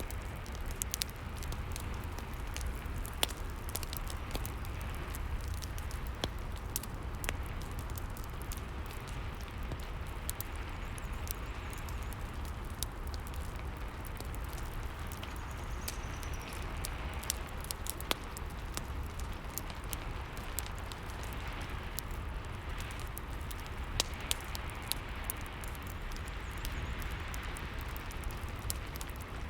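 Rain and a crackling fireplace: an even hiss of rain with frequent sharp pops and crackles from the fire over a low rumble.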